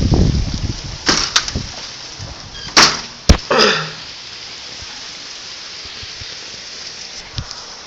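Hail falling steadily, with several sharp knocks in the first four seconds.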